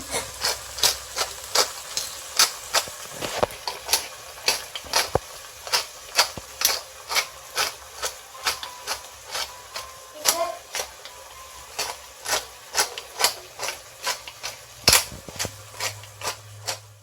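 A cooking utensil clacking against a frying pan about three times a second while chicken is stirred and sautéed.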